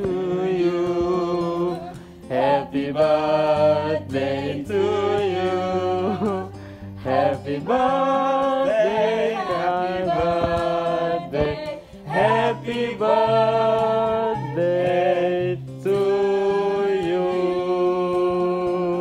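Music: several voices singing a song together over long-held low notes.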